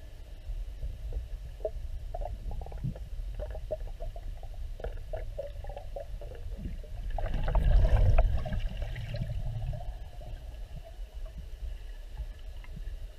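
Sound picked up by an underwater camera: a steady low rumble of water around the housing, with scattered small clicks and knocks, and a louder gurgling surge of moving water about eight seconds in.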